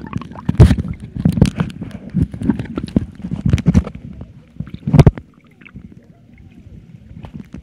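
Water splashing, sloshing and gurgling against a camera moving at and just under the surface, with irregular knocks and a loud slosh about five seconds in. After that it falls to a much quieter, muffled water hush.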